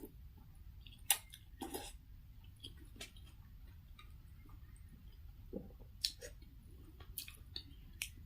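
A person eating pork noodle soup: soft chewing and mouth sounds, with scattered short clicks, the sharpest about a second in.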